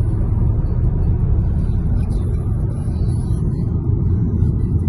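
Steady low rumble of road and engine noise from a car being driven, heard inside the cabin.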